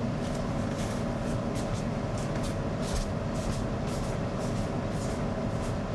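Hair dryer running steadily, with faint short rustles scattered over it.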